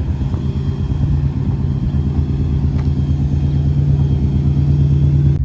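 2001 Subaru Impreza RS's newly installed replacement flat-four engine running steadily just after starting, a little louder near the end.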